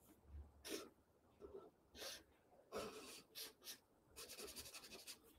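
Faint strokes of a black felt-tip marker drawing on a paper pad, short separate strokes, then a quick run of them near the end.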